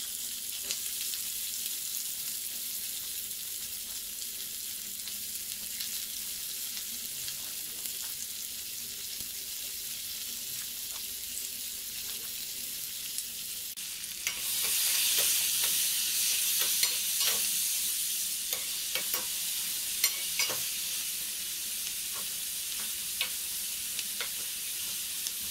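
Chopped vegetables sizzling in hot coconut oil in a kadai while being sautéed. About halfway through the sizzle gets louder, and a spatula stirring and scraping in the pan adds many sharp clicks.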